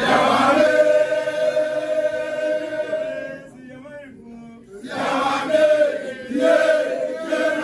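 A group of men chanting together in long held notes, dropping away about three seconds in and taking up again about a second and a half later.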